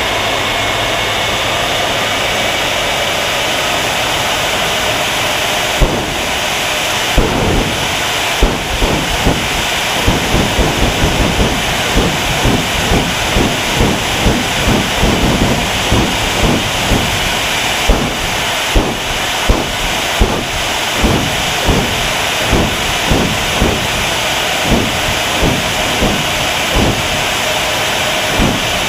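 General Electric J79 jet engine on a jet-powered semi truck running with a steady loud hiss. From about six seconds in, sharp irregular pops cut through it, several a second at first, then about one a second.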